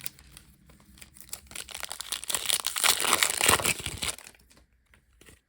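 Plastic foil trading-card pack wrapper crinkling and tearing as it is ripped open, building to a loud crackle for a couple of seconds and stopping about four seconds in.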